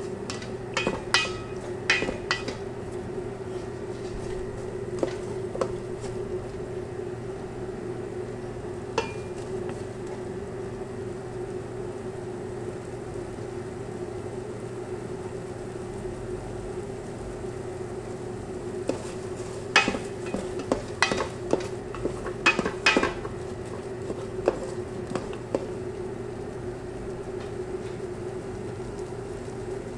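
A spoon stirring and knocking against a metal cooking pot, in clusters of sharp clicks about a second in and again around two-thirds through, over a steady low hum.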